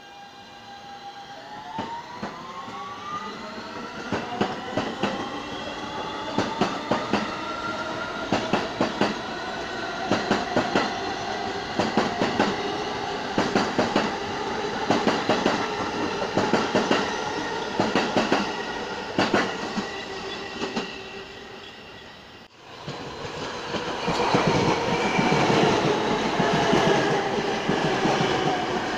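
Subway train pulling out on a far track: its traction motors whine up in pitch while the wheels click regularly over rail joints. About 22 seconds in, after a cut, a closer and louder R160 subway train runs along the platform track, its motor tones falling in pitch as it slows.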